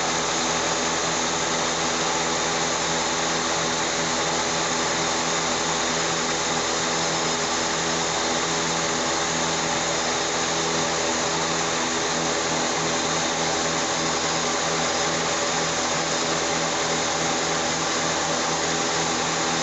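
Honda Civic's 1.6-litre non-VTEC four-cylinder engine idling steadily with an even whirring hum, left running after a coolant refill so trapped air can bleed out of the cooling system.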